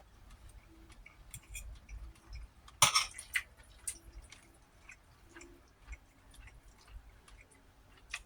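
Eating sounds close to the microphone: quiet chewing with scattered soft clicks, and one sharper click about three seconds in.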